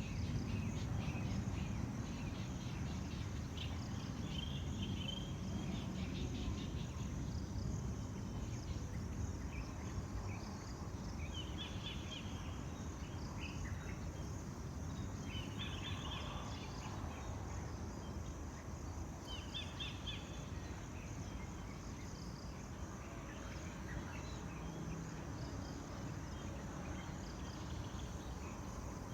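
Tropical outdoor ambience: a steady high insect drone, with brief bursts of rapid bird chirping a few times, over a low background rumble.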